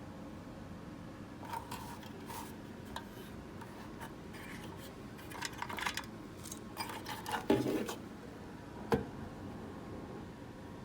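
Handling sounds of small parts and tools on a workbench: scattered light clicks, taps and rubbing, with a louder knock about seven and a half seconds in and a sharp click about nine seconds in.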